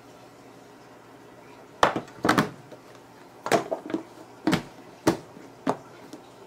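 A translucent plastic lid being fitted onto a white tray and pressed down by hand: about six sharp clicks and knocks over roughly four seconds, starting about two seconds in.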